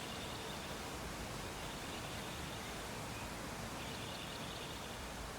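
Steady low background hiss, with a faint high whine that comes and goes, louder for a moment about four seconds in.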